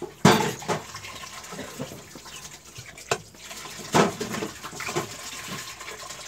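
Wood fire crackling under a lidded aluminium pot, with a steady watery hiss and a few sharp pops, as the clam broth heats toward the boil.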